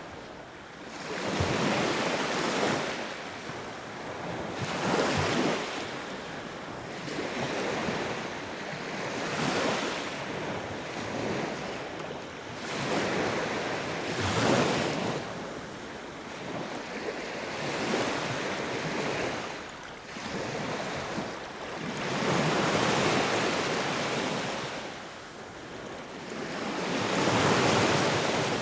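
Sea surf: waves breaking and washing in, one swell of rushing water every few seconds, each rising and fading away.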